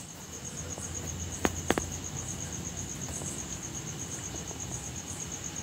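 A cricket chirping steadily in a high, even pulse, about eight pulses a second, over cashew pieces frying in ghee in a nonstick pan; a spoon clicks twice against the pan about a second and a half in.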